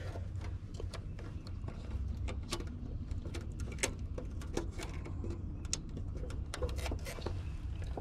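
Scattered small clicks and rattles of hands working wires and multimeter test leads inside an air-conditioner control compartment, over a steady low rumble.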